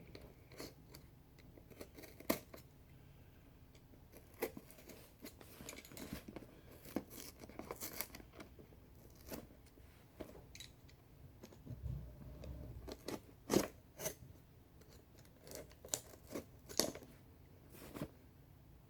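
A mailed package being cut open with a box cutter and pulled apart: irregular slicing and scraping strokes, tearing of packaging, and small handling clicks, with a dull thud about twelve seconds in.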